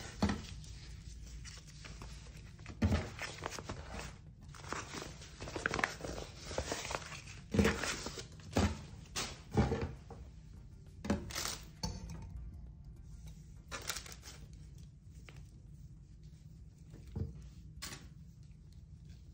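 Rustling and brushing of a polyester T-shirt as it is unfolded and smoothed out by hand. The rustles come in quick irregular bursts for the first twelve seconds or so, then grow sparse.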